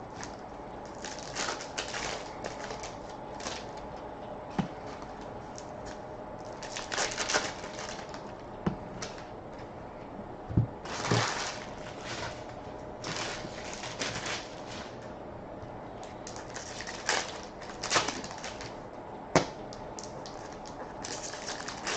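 Irregular rustling, crinkling and clicking of hockey card boxes and packs being handled and opened.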